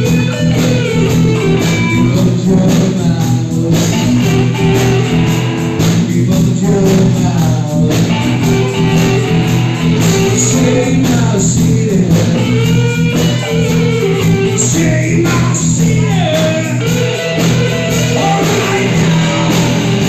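Live rock band playing loud blues rock: electric guitar over bass and drums, with a woman singing.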